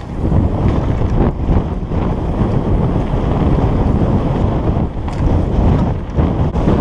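Wind rushing over the microphone as a mountain bike descends a dirt trail at speed, mixed with tyre noise on the hard-packed dirt and a few brief rattles from bumps.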